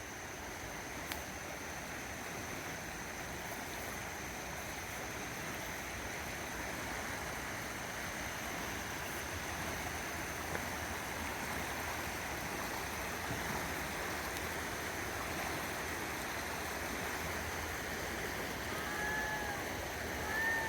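River water flowing with a steady rush, and a faint steady high tone above it.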